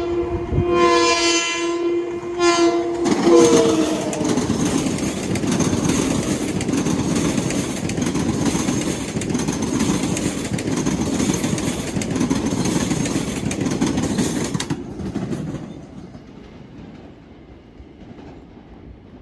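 Long Island Rail Road M7 electric train sounding its horn in a few short blasts, the horn's pitch dropping as it passes. The train then rushes by for about twelve seconds before the noise falls away.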